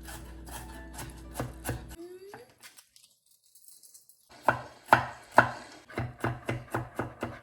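Knife chopping on a cutting board in quick, even strokes, about three a second, broken by a second or two of near silence in the middle.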